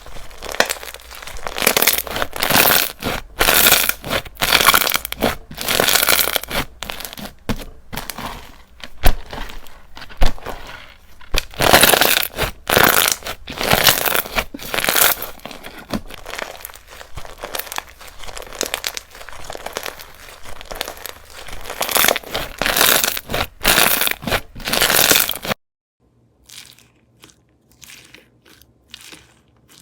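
Slime mixed with plastic Perler beads being pressed, poked and stretched by hand, giving repeated bursts of crunchy crackling. About 25 seconds in the loud crunching stops abruptly and only a few faint clicks follow.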